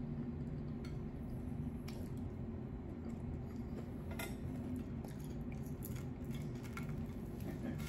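Scattered light clicks and clinks of cutlery and dishes as someone eats, over a steady low hum.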